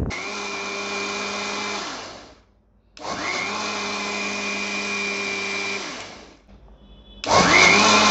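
Singer electric blender with a stainless steel jar blending mango lassi in pulses: the motor spins up with a rising whine, runs steadily, winds down and stops, three times. The first two runs last about two and three seconds; the third starts near the end, is the loudest, and keeps running.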